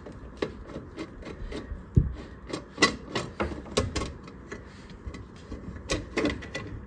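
A 1/4-inch screw being backed out of a dishwasher's electrical junction box cover by hand: a run of irregular small clicks and scrapes of metal on metal, with a few sharper knocks, the loudest about two seconds in.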